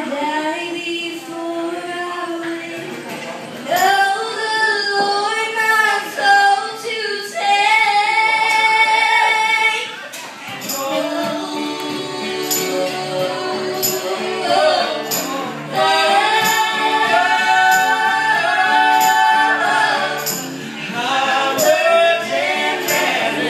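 Live band music: a man and women singing together in harmony over an acoustic guitar, with a light, regular high percussive tick on the beat.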